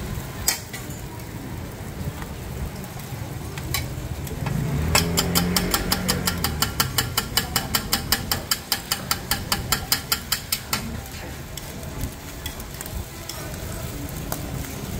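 Scallion pancakes sizzling on a flat-top griddle. About five seconds in, a metal spatula starts striking the griddle in a fast, even series of clacks, about four a second for some six seconds, as a pancake is beaten and fluffed, then stops.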